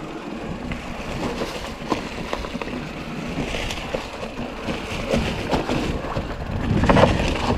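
Mountain bike rolling fast along a dry dirt trail covered in dead leaves: steady tyre noise with frequent knocks and rattles over bumps and roots, and wind on the microphone. It gets louder near the end.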